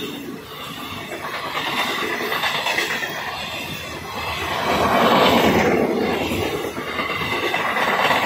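Indian Railways passenger coaches rolling past at speed, their wheels running and clattering on the rails. The sound swells loudest about five seconds in.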